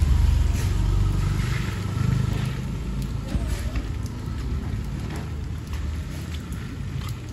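A motorcycle riding away along a wet lane, its engine rumble fading steadily over several seconds. Scattered light raindrop ticks come through as it dies away.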